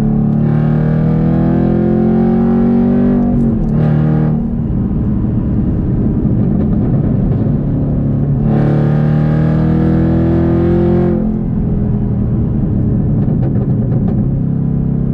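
The supercharged 6.2-litre LT4 V8 of a 2022 Camaro ZL1, heard through its H-pipe catback exhaust from inside the cabin, accelerating hard twice. The exhaust note rises in pitch and breaks at an upshift a few seconds in. It then settles, and a second pull rises again until the throttle is lifted about eleven seconds in.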